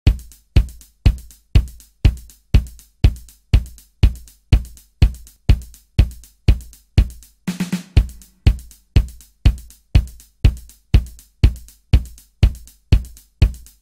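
Extended DJ-remix intro: a bare kick drum hitting a steady beat, about two hits a second, each with a deep booming tail. About halfway through, a short fill of three or four quicker, brighter hits breaks in before the steady kick resumes.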